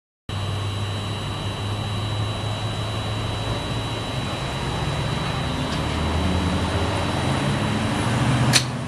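Gas station fuel pump dispensing gasoline: a steady hum and rush of flow with a thin high whine, then a sharp click near the end.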